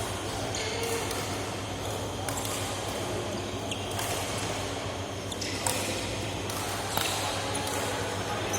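Rally in an indoor sports hall: sharp strikes come every second or so, typical of badminton racket hits on a shuttlecock, over a steady low hum.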